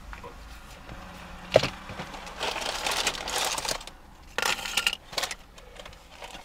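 Rustling, crinkling handling noises inside a car cabin, in irregular bursts, with one sharp click about one and a half seconds in.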